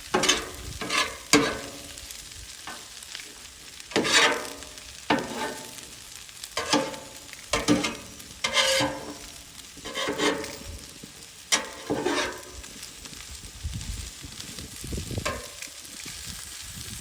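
Food frying on a Blackstone flat-top griddle with a steady sizzle, under a dozen or so irregular scrapes and clanks of a metal spatula on the steel cooktop. The scraping stops shortly before the end, leaving only the sizzle.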